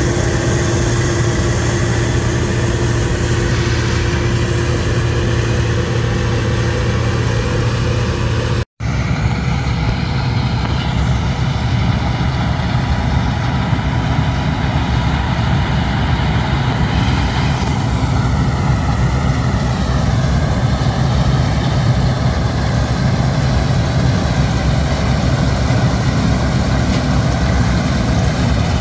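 Bizon Rekord combine harvester's diesel engine running steadily, with an even machine drone. The sound cuts out for an instant about nine seconds in and then carries on.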